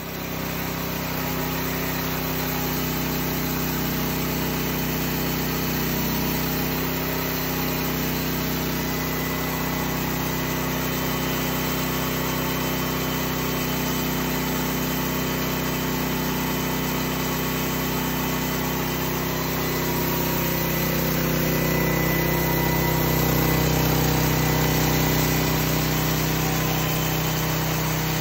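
Homemade band sawmill's 18 hp DuroMax engine running steadily, getting slightly louder about twenty seconds in.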